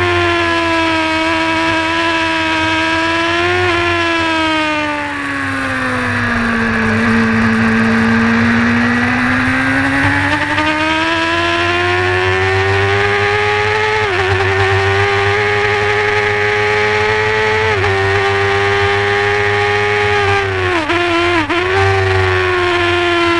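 Honda supersport race motorcycle engine running hard at high revs under full load, heard from on board. Its pitch sinks slowly through a long corner and climbs again, drops briefly twice as it shifts up, then dips several times in quick succession about 21 seconds in as it shifts down.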